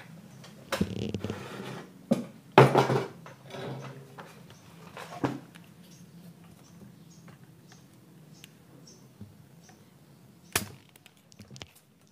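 A few sharp clicks and clatters of hand tools being handled at a workbench, the loudest about 3 seconds in and near the end, over a faint low steady hum.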